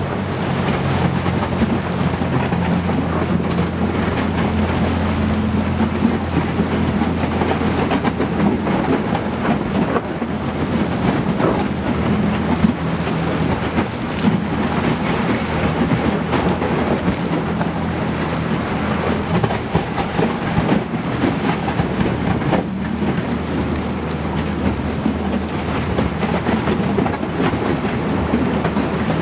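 A small boat's motor runs steadily with a low hum while the hull breaks through thin river ice, with continuous crackling and scraping of ice against the hull.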